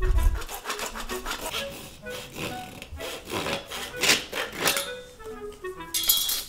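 Quick back-and-forth rasping strokes of a hand tool working on material, with background music in short notes stepping down in pitch near the end.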